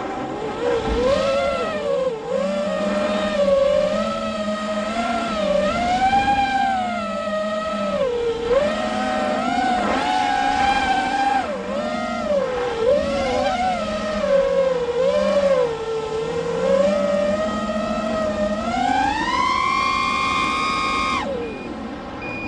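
Brushless motors and propellers of a 6-inch FPV quadcopter, heard from on board, whining up and down in pitch with each throttle change. Near the end the pitch climbs steadily to full throttle for a few seconds, then drops suddenly as the throttle is cut.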